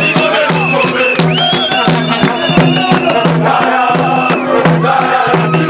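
A supporters' band: a crowd of football fans singing a chant together over repeated beats on a large drum, with horns blowing long steady notes that start and stop.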